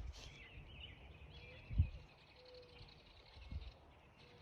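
Faint birdsong: small birds chirping and twittering, with a single low thump a little under two seconds in.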